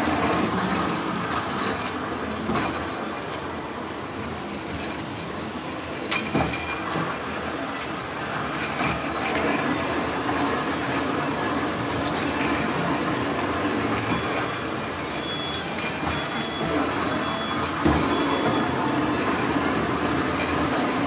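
Rail cars rolling along a track: a steady clatter of wheels on rail, with some wheel squeal and a couple of sharp knocks.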